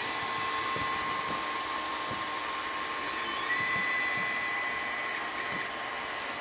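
Small motor-driven machine running: a steady fan-like hiss with a thin high electric-motor whine, and a second whine tone joining about three and a half seconds in.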